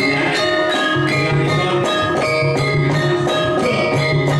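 Javanese gamelan playing: struck metal instruments ringing in several steady pitches over an even beat.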